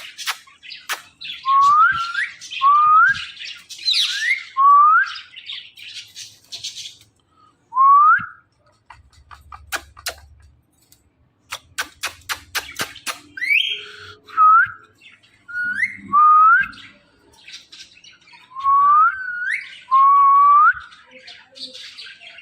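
Parrot whistling a series of about a dozen short notes, each sliding upward in pitch, with runs of sharp clicks between them.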